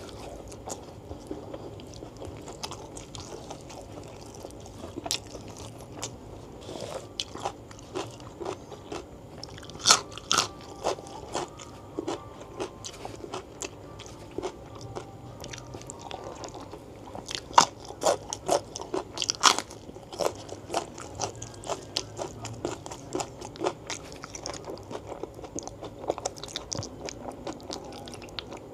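Close-miked mouth sounds of a person eating gulai tunjang, beef foot tendon and fat in curry with rice, by hand: wet chewing with many sharp crunchy bites and smacks. The crunches come thickest about ten seconds in and again between about seventeen and twenty seconds in.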